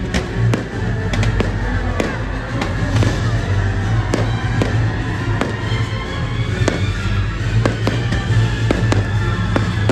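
Fireworks launching and bursting in quick succession, a couple of sharp pops and bangs a second, over loud show music.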